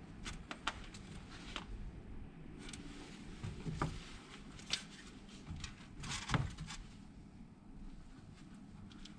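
Handling noise from soccer boots with rubber turf soles being picked up, turned over and set down by gloved hands: scattered light knocks and rubs, the loudest a little past the middle, over a steady low hum.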